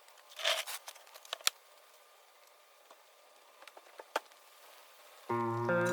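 Scattered faint clicks and a brief rustle, then background music starts suddenly near the end.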